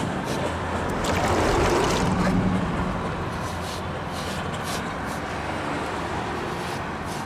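Wet sponge scrubbing a limestone step in short strokes, with a vehicle engine running in the background that is loudest in the first couple of seconds.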